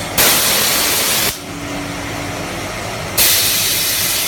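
Automatic parts-washing machine giving a loud, steady hiss that cuts off about a second in, leaving a quieter hiss with a faint hum, then comes back abruptly near three seconds in as the cleaning cycle switches stages.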